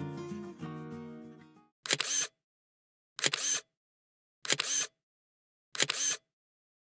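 Background music fades out, then a camera shutter sound effect clicks four times, about a second and a quarter apart, with dead silence between the clicks.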